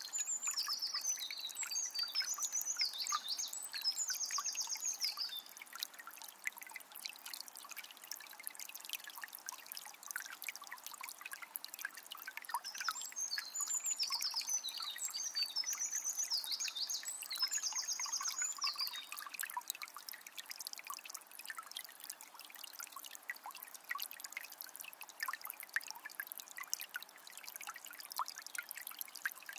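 A calm forest river flowing and trickling steadily, with many small splashes. A songbird sings a phrase of rapid high chirps twice, near the start and again around the middle, lasting about five seconds each time.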